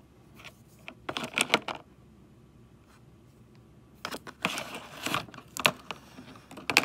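Plastic diamond painting drill pens clicking and clattering against each other as a bundle of them is handled, in two short bursts with a single sharp click at the end.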